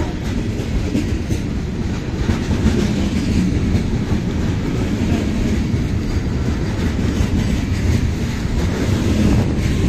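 Loaded freight gondola cars rolling past, steel wheels clacking over the rail joints over a steady low rumble.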